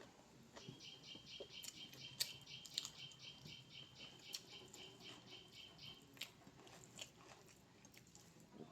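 Faint eating sounds: quiet chewing and a few sharp clicks, against a high chirp repeated about five times a second that stops about six seconds in.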